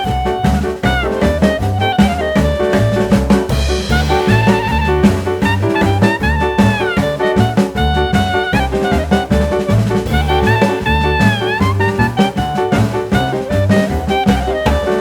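Background music: upbeat jazz with saxophone or brass melody over a swinging bass and drum-kit beat.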